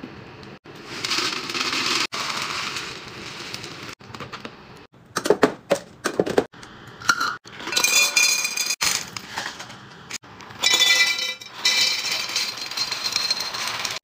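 Dry food being poured into storage containers in a run of short takes: a plastic cereal dispenser handled with a few sharp clicks, then dry pasta rattling out of cardboard boxes into tall glass jars. The glass rings as the pieces strike it.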